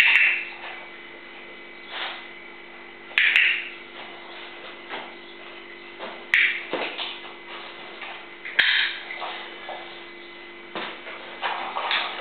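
A steady low hum with short, sharp noises every two to three seconds, each starting with a click.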